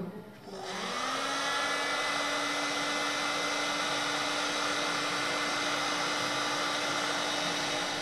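Electric heat gun running: its fan motor spins up with a rising hum in the first second, then blows steadily for about seven seconds and cuts off near the end.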